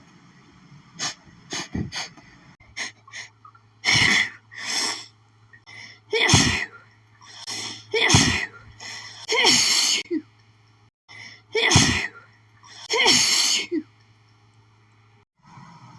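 A woman in a sneezing fit: several loud, sudden sneezes with quick sniffs and gasping in-breaths between them.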